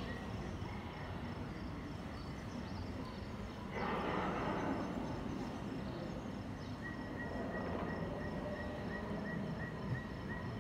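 Nature soundtrack of a projected jungle show: a steady hiss with faint pulsing high chirps, a burst of rushing noise about four seconds in, then a short high chirp repeating about three times a second.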